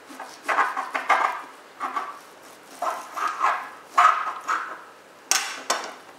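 Kitchen knife cutting streaky bacon into thin strips on a board: a series of short slicing strokes, with two sharper ones near the end.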